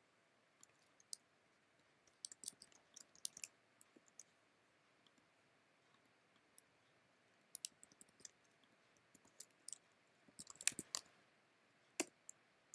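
Faint scattered clicks from working a computer, coming in small clusters with gaps between them, the strongest near the end.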